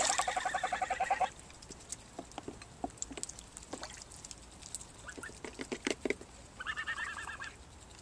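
Greylag geese calling: a rapid pulsing run of calls in the first second or so and a shorter call near the end, with splashing and dabbling in shallow water between them as a goose bathes in a plastic paddling pool.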